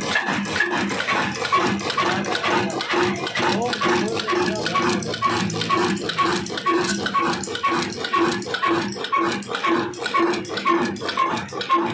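Old stationary diesel 'black engine' running at a slow, steady beat of about two firing knocks a second, with a clattering of valve gear and injector. It is driving an atta chakki flour mill.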